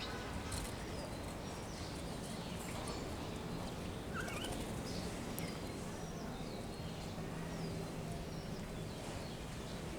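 Small birds chirping outdoors: many short, high chirps and quick downward-sliding calls over steady background noise, with a faint low hum in the middle.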